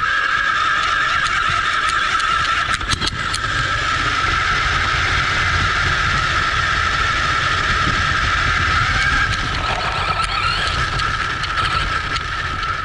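Onboard sound of an RC buggy driving: its motor and drivetrain whine at a steady pitch over the rumble of its tyres on grass and gravel, with a few clicks about three seconds in and a short rise in the whine's pitch near ten seconds.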